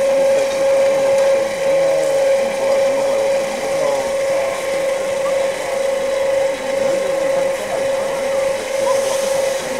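A steady machine whine held on one pitch, with faint voices of people underneath.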